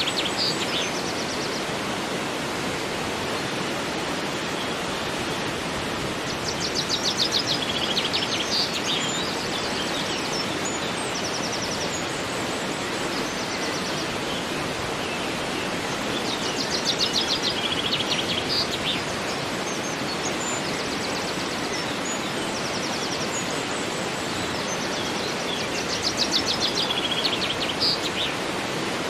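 Steady rush of flowing river water, with a songbird's rapid high trill followed by a few short notes, repeating about every ten seconds, three times.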